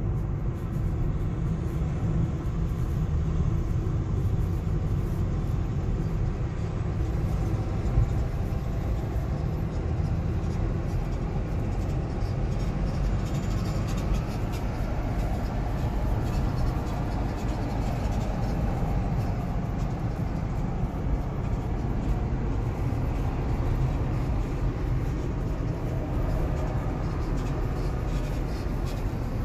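Road and engine noise inside the cabin of a moving BMW X5 E53: a steady low rumble, with one brief thump about eight seconds in.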